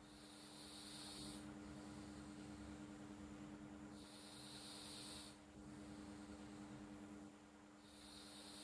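Sleeping cat snoring softly: three hissy breaths, each about a second long and about four seconds apart, over a steady low hum.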